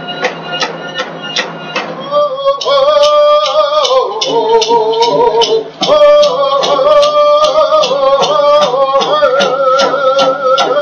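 Voices singing a Native American song over a drum struck at a steady beat of about three strokes a second. The singing grows louder about two seconds in.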